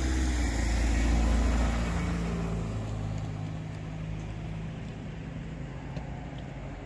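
A motor vehicle's engine droning low and steady. It is loudest in the first two seconds, dropping slightly in pitch, then gradually fades.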